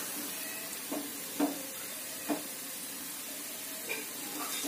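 Chopped onions sizzling steadily in a little oil in a steel kadai, with a few short soft knocks scattered through.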